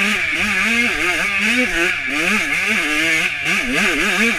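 Dirt bike engine under hard riding, its pitch rising and falling over and over as the throttle is worked, about two swings a second in the second half.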